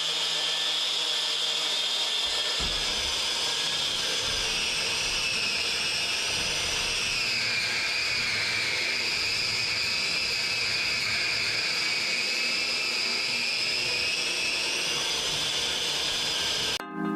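Corded 850-watt electric drywall sander with a dustless vacuum system, running steadily with a high motor whine. The whine drops in pitch about seven seconds in and climbs back near fifteen seconds.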